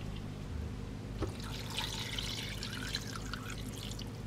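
Soup pouring from a plastic takeout container into an earthenware pot, liquid trickling and splashing for a couple of seconds. A low, steady hum runs underneath.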